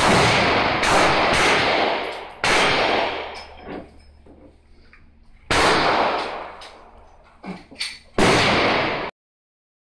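Pistol fired six times, each shot a sharp crack with a long echo: three in quick succession, then single shots spaced about three seconds apart. Fainter pops fall between the later shots.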